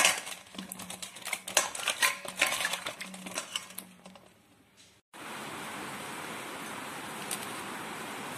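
Pointed gourds being swished by hand in water in a steel bowl: splashing, with irregular knocks of the gourds against the bowl. About five seconds in, this cuts off suddenly and gives way to a steady hiss.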